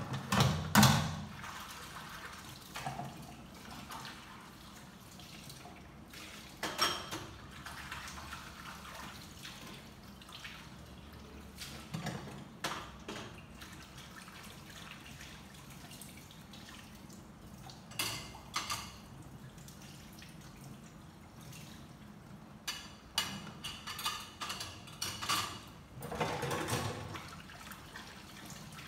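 Washing by hand at a kitchen sink: water splashing and dripping, with scattered knocks and clinks. The knocks are loudest at the start and come in a busy run about three-quarters of the way through.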